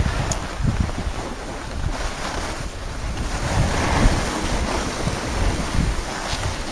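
Wind buffeting the microphone of a camera carried by a moving skier, over the steady hiss and scrape of skis sliding on packed snow, which swells about four seconds in.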